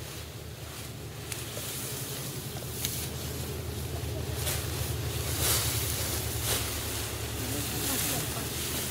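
Wind rumbling on the microphone, with short bursts of rustling from bundles of cut grass being handled and laid on a hut's thatch.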